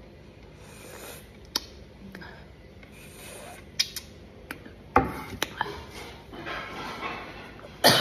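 A plate being licked clean and handled: soft rasping, rubbing sounds broken by several sharp clicks, with a louder knock about five seconds in as the plate meets the table.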